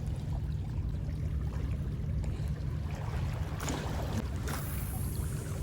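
Steady wind rumble on the microphone over calm sea washing gently against the rocks, the wash growing a little stronger about three seconds in.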